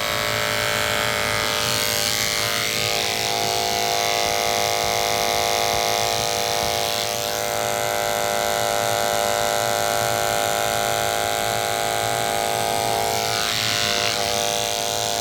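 Electric grooming clipper running steadily with a freshly sharpened A5 blade fitted with a ceramic cutter, a constant motor hum whose tone shifts briefly a few times.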